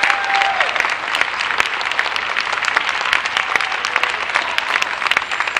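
Crowd of spectators applauding: a dense, steady run of hand claps.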